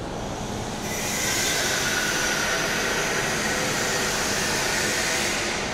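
Steady machine noise, a hissing whir from stainless-steel milk pouch packing machines running in a dairy plant. It grows louder about a second in and eases off near the end.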